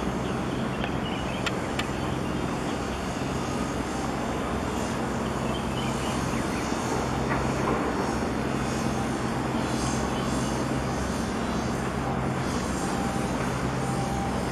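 A boat's engine droning steadily, a low hum with an even hiss of wind and water over it.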